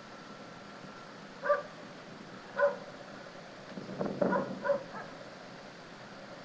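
A dog barking: two single barks about a second apart, then a quick run of three or four barks a little later.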